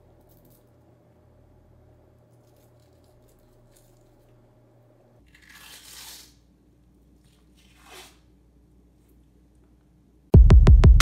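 Soft wet tearing as the thin outer membrane is peeled off a raw deer liver lobe by hand, twice, about six and eight seconds in. Loud music with a heavy drum beat cuts in near the end.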